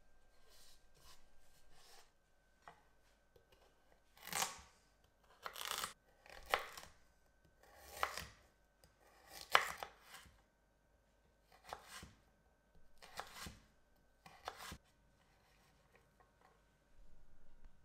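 Kitchen knife cutting through a raw carrot lengthwise on a wooden cutting board: a series of about nine separate cuts, each under half a second, between about four and fifteen seconds in.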